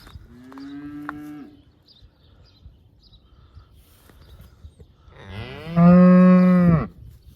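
Cattle mooing twice: a short, quieter moo near the start, then a much louder, lower moo of about a second and a half, a little past the middle.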